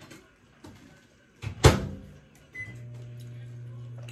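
A microwave oven door shuts with a thump, a key beeps once, and the oven starts running with a steady low hum.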